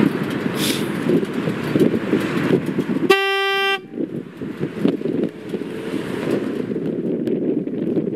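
2006 Harley-Davidson Fat Boy's horn giving one short blast about three seconds in, a single steady note lasting under a second, over an uneven low rumble.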